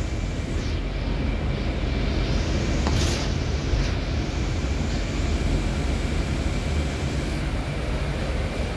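Inside a moving city bus: steady engine and road rumble with a thin, steady high whine, and a brief hiss about three seconds in.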